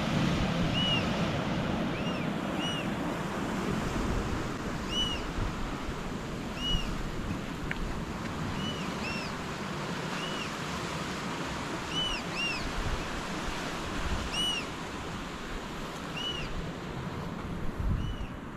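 Ocean surf washing with wind buffeting the microphone, under a repeated short high chirp that rises and falls, sounding roughly once a second.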